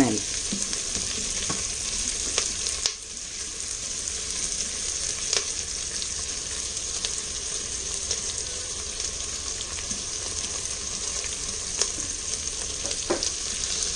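Chopped onion and capsicum sizzling steadily in hot oil and butter in an electric pressure cooker's pot, roasting towards a light char, with a few light clicks of stirring.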